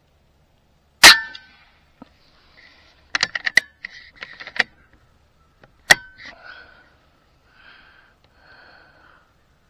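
Vulcan 3 air rifle with a muzzle brake fired twice, a sharp crack about a second in and another about five seconds later. Between the shots comes a quick run of clicks and clacks as the rifle is worked for the next shot.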